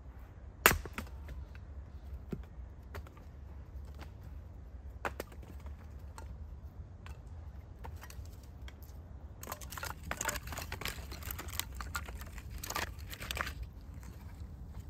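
A hatchet splitting a piece of firewood on a chopping block: one sharp crack about a second in, then a few light knocks. Later, several seconds of clattering and rustling as split wood pieces are picked up off the ground and stacked in the arms.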